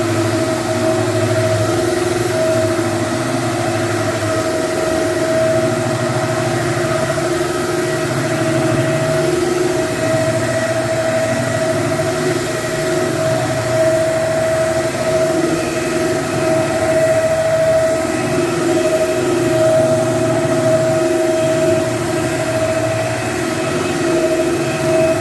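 Hardwood floor cleaning machine running steadily with a constant motor hum and whine as it scrubs the floor.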